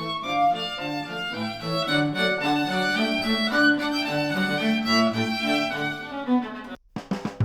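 Instrumental music led by bowed strings, played through headphones and picked up by microphones at the earcups. It breaks off near the end, and a different track starts after a brief gap.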